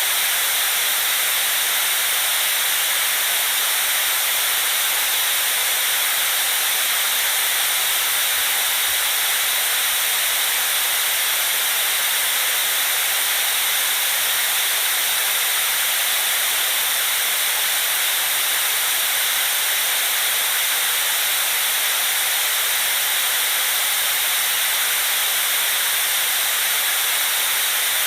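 Steady white noise: an even, unchanging hiss, bright and strongest in the highs, with little bass.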